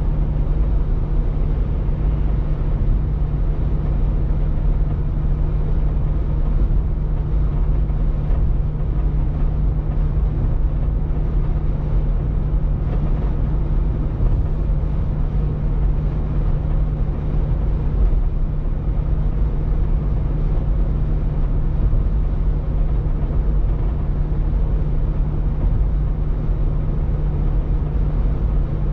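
Car driving steadily, heard from inside the cabin: a constant low rumble of tyres and engine with a steady low hum.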